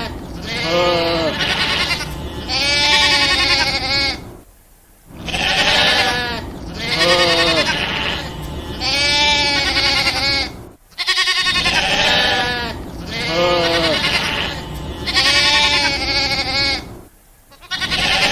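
Goats bleating over and over: a run of wavering calls, each about a second long, with brief pauses every six seconds or so.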